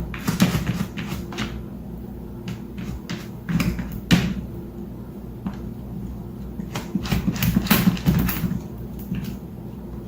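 Irregular knocking and tapping over a low steady hum, with the sharpest knocks about four seconds in and a cluster a little before eight seconds.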